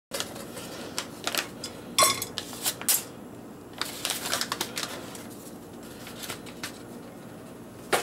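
Paper microwave-popcorn bag rustling as its unpopped kernels and block of oily flavoring are shaken out into a metal pot, with scattered clicks and clinks of kernels hitting the pot; busiest in the first few seconds, sparser after.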